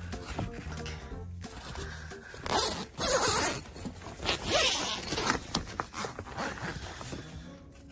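A hand flexing the ice-coated clear urethane window of an air tent, making crinkling, crackling rasps, loudest in two stretches a few seconds in.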